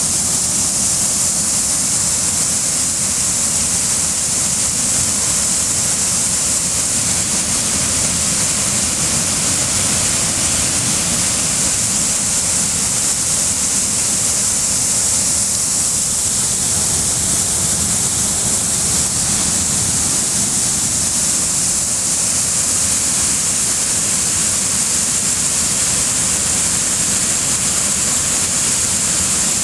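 Water pouring from a dam in a steady, loud, unbroken rush, with a hissing high edge.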